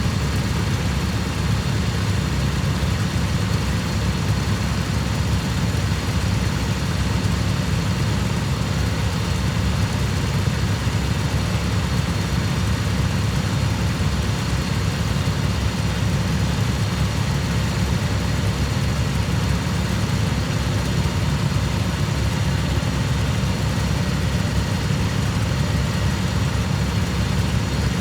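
Cub Cadet lawn tractor engine running at a steady speed, with no change in pitch or load.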